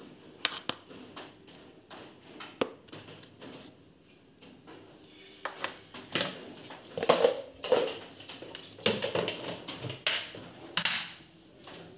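Steady high-pitched chirring of crickets, with scattered light clicks and knocks that come thicker and louder in the second half.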